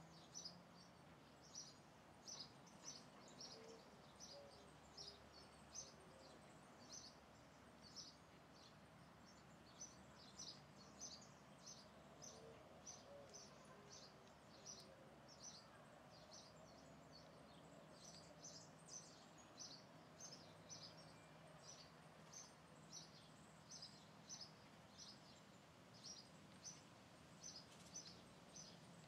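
Faint high bird chips repeating about one or two a second, with a steady low background hum.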